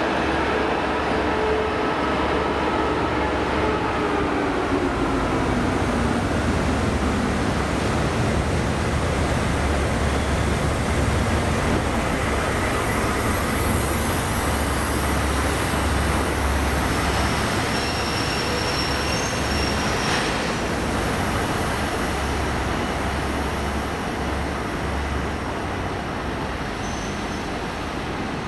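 Locomotives moving through a station. An EP2K electric locomotive's whine falls in pitch over the first few seconds, over the steady low rumble of a TEM18V diesel shunting locomotive's engine running close by.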